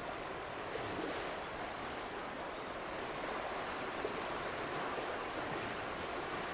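Steady outdoor background noise: an even rushing hiss with a few faint rustles.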